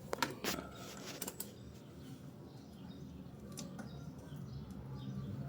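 A few sharp clicks and taps in the first second and a half, then quieter scattered ticks.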